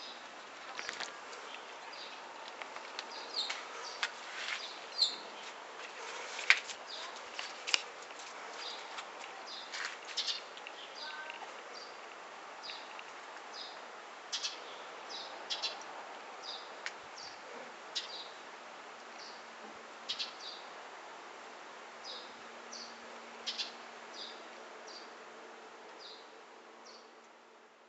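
Small birds chirping outdoors, short high calls repeating every second or so, with a few sharp clicks in the first several seconds.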